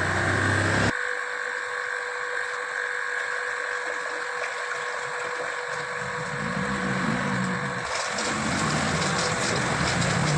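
Crompton 1 HP electric water pump running steadily with its freshly changed water seal, a constant whine over the rush of water. The sound changes abruptly about a second in and grows hissier near the end.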